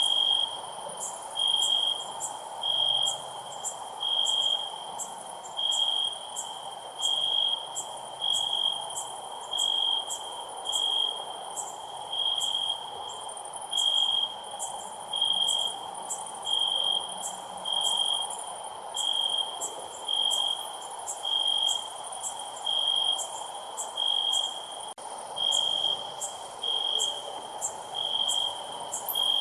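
Cricket chirping: short high chirps repeating at an even pace, about one every second and a half.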